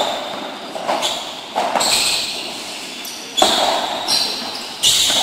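Padel rally: the ball is struck by solid paddles and bounces off the court and walls, giving sharp knocks about once a second, each with a short ring and echo in a covered hall.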